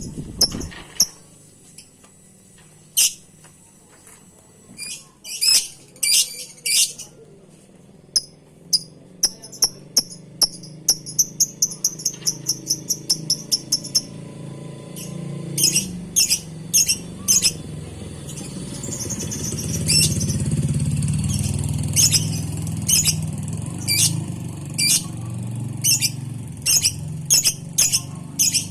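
Lovebird calling: sharp, high chirps repeated in irregular strings, with a fast run of chirps from about nine to fourteen seconds in. A low background rumble swells in the second half.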